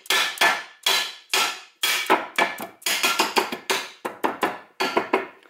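A mallet tapping an aluminum Muncie 4-speed midplate down into the transmission case bore in a long run of sharp taps, about two a second at first and quickening to three or four a second. The plate is a snug, tight fit in the bore.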